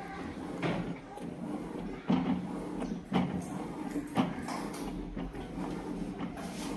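A few sharp knocks and clicks of hands working on parts and test leads, over a steady low hum.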